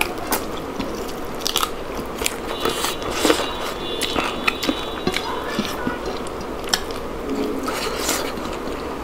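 People eating with their hands: chewing and biting, with irregular crisp crunches and wet mouth clicks.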